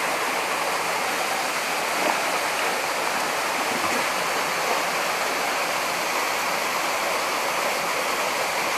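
Steady rush of a small waterfall pouring into a rock pool, with a few faint splashes of people wading in the water.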